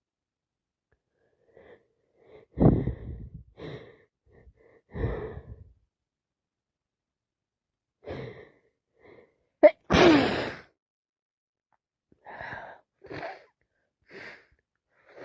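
A woman sneezing several times in a row, with short catching breaths in between; the loudest, sharpest sneeze comes about ten seconds in. She fears the sneezing is another cold coming on.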